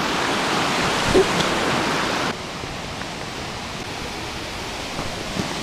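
Rushing water of a stream cascading over rocks at the head of a small waterfall, a steady hiss with a short bump about a second in. A little over two seconds in it drops abruptly to a quieter, duller rush.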